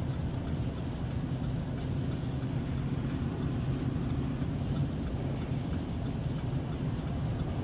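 Steady engine hum and road noise inside a truck's cab while it drives along at an even pace.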